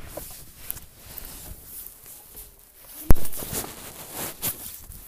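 Rustling and handling noise with scattered clicks, broken about three seconds in by one sharp, loud thump, followed by a few smaller knocks.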